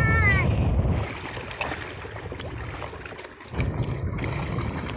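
Wind buffeting the microphone, a low rumble over surf and water noise, briefly dropping away about three and a half seconds in. A short high-pitched voice sounds at the very start.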